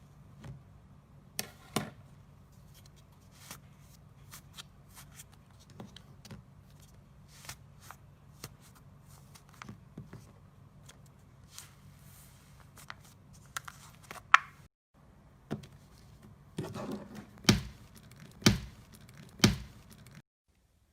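Slime being squeezed and poked by hand, giving scattered sticky clicks and crackles, with three louder squelching pops about a second apart near the end.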